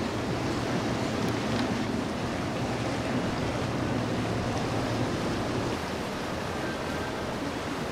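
Cabin cruiser motoring past at cruising speed: the rushing wash of its bow wave and wake over a steady low engine hum, the hum dropping away about two-thirds of the way through.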